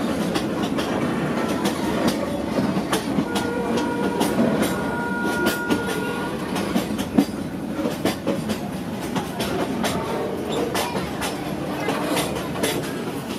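Passenger train carriage rolling along, heard from inside: a steady rumble and rattle of the car with rapid, irregular clicks and knocks from the wheels and fittings. A faint steady whine sounds for about three seconds starting about three seconds in, and one sharper knock comes about seven seconds in.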